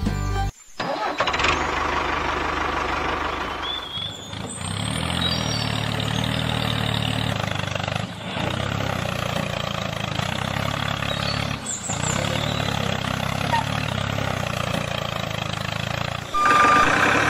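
Tractor engine running steadily, broken off and resumed in several stretches of about four seconds each.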